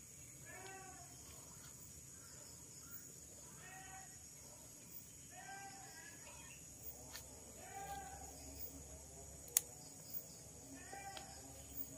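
A goat bleating repeatedly: about half a dozen short, arching bleats a second or more apart, with a single sharp click a little before the end.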